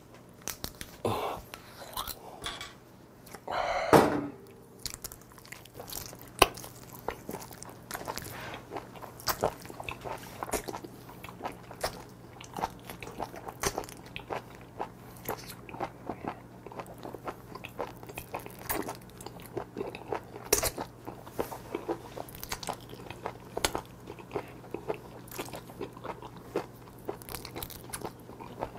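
Close-miked eating of raw live small octopus (sannakji): wet slurping as the tentacles are drawn into the mouth and chewing, with many sharp wet clicks. One louder burst comes about four seconds in.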